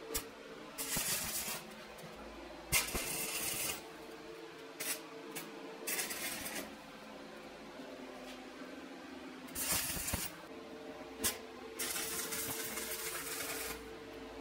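Five short bursts of hissing, each lasting about one to two seconds, with a few sharp clicks in between.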